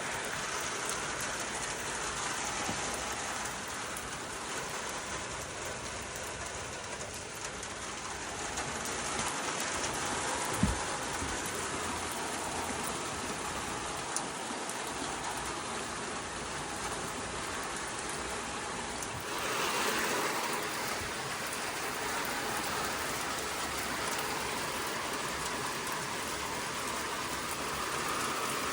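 Steady rain falling, an even hiss that swells a little about two-thirds of the way through, with one short knock about ten seconds in.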